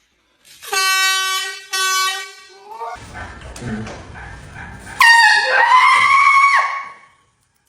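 Air horn blaring in two long steady blasts, one right after the other. A few seconds of jumbled noise follow, then about five seconds in comes a loud, high-pitched cry lasting nearly two seconds, the loudest sound here.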